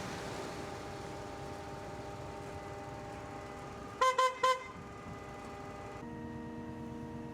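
A vehicle horn sounds three quick short honks about four seconds in, over a steady hum of several tones that shifts abruptly to a different set of tones about six seconds in.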